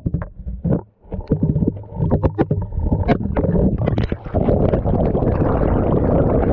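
The camera's microphone goes underwater in the pool, and the sound turns suddenly muffled, with the higher sounds gone. Scattered knocks and clicks follow as the camera is handled and bumped, then from about four seconds in a steady low rushing of churning water beneath the waterfall.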